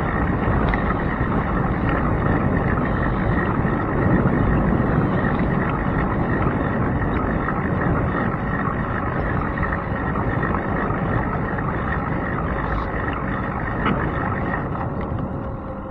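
Wind rushing over a handlebar-mounted camera's microphone while a bicycle rolls along pavement, with steady road rumble and small rattles, easing a little near the end.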